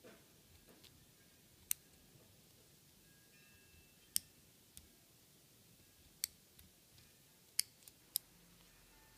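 An X-Acto craft knife blade snipping machine-sewn basting stitches through the backing cloth, about six sharp clicks a second or two apart as the threads part.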